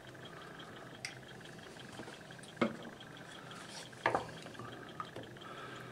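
A stirring utensil knocks lightly against a stainless steel saucepan as cream is stirred into a sauce. There are three sharper knocks about a second and a half apart, then a couple of softer ones near the end.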